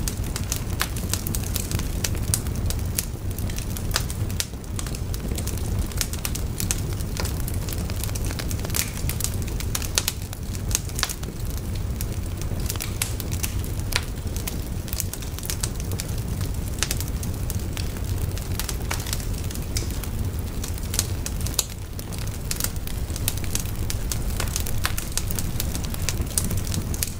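Wood fire burning: a steady low rumble with frequent sharp crackles and pops from the burning logs.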